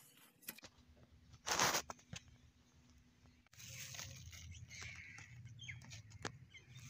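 Soil sliding off a spade into a woven flour sack, one short rushing pour about one and a half seconds in. After an abrupt change, a hand crumbles and stirs compost into the soil in the sack: soft rustling and crackling over a steady low hum.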